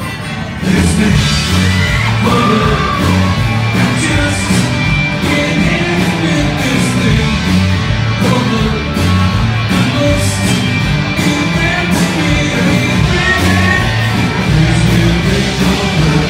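Live rock band playing at full volume with a singer, the whole band coming in loud about half a second in.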